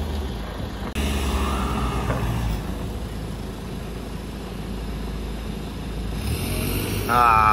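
Land Rover Defender engine running and revving while driven over dirt, its exhaust loud, with a short rise in revs about a second in. Near the end a warbling high-pitched call cuts in briefly over the engine.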